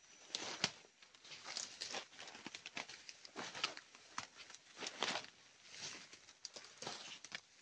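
Footsteps crunching and rustling through dry leaves and undergrowth, in irregular strokes with a few louder crunches.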